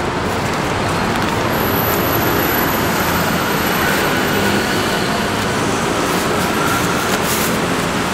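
Steady traffic noise from a busy street: a continuous rumbling wash of passing vehicles.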